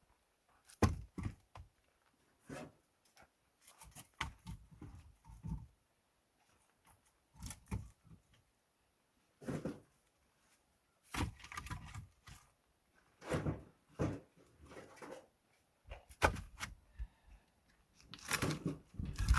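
Irregular knocks and thuds of things being handled, in loose clusters with short quiet gaps between them.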